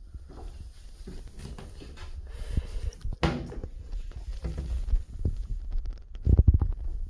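Rumbling handling noise from a handheld phone's microphone, with scattered knocks and footsteps. A louder clatter comes about three seconds in, and heavy thumps come near the end.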